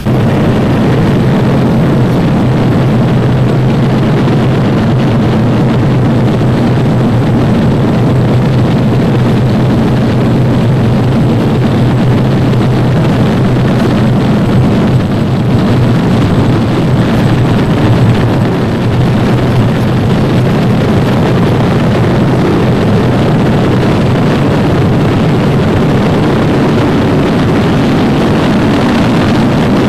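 B-25 Mitchell bombers' twin Wright R-2600 radial piston engines running steadily, a loud even engine noise with a strong low hum, as the planes taxi.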